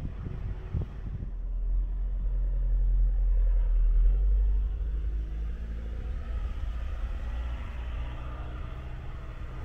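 Ford Ranger Raptor pickup driving over a rough dirt track: a low engine and road rumble that swells for a couple of seconds in the middle, with a single knock about a second in.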